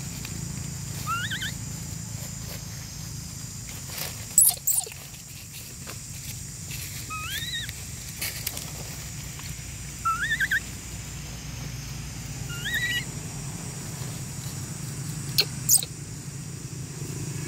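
Long-tailed macaques giving four short, high, squeaky rising calls a few seconds apart. A couple of sharp clicks come about four and fifteen seconds in, over a steady low background hum.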